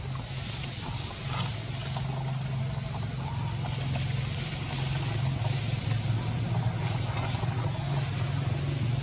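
Steady outdoor background noise: a low drone with a steady high-pitched hiss over it.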